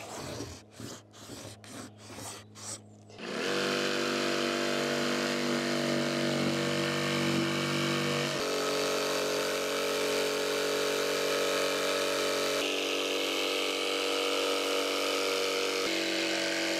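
A cordless jigsaw cutting a circular hole through tongue-and-groove timber boards. It starts about three seconds in and runs steadily, its pitch shifting a few times as it goes. Before it come a quick run of short sharp strokes, about two or three a second.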